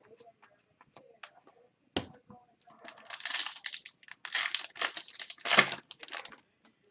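Foil wrapper of a hockey card pack crinkling and tearing as it is opened, in several bursts, after a sharp tap about two seconds in.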